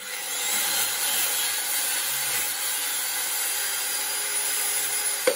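Electric angle grinder with a cut-off disc grinding into a stainless steel bolt held in a vise. The grinding noise is loud and steady for about five seconds. Near the end a sharp knock comes as the disc leaves the bolt, and the motor's whine starts to fall as it winds down.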